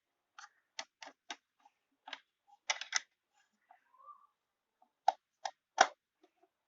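Light clicks and taps of miniature toy kitchen pieces being handled, the tiny cake pan and toy oven, coming irregularly in small clusters. The loudest knock comes near the end.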